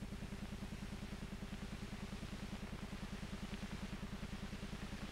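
Steady low pulsing hum of an old film soundtrack, about a dozen even pulses a second, with a faint steady tone over it.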